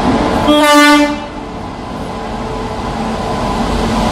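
Electric locomotive's air horn sounding one short blast, under a second long, as the WAP-7 rolls in alongside the platform. The steady rumble of the arriving train runs on under and after it.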